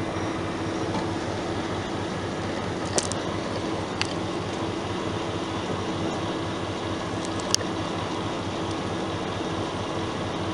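Steady hum of a passenger train standing at the platform: the SU42 diesel locomotive idling and the double-deck coaches' equipment running. A few short sharp clicks break through, the loudest a little past the middle.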